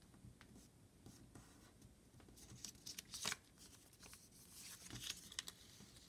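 Faint rustling and creasing of a square of paper being folded by hand, with a few small crackles, the clearest about three seconds in.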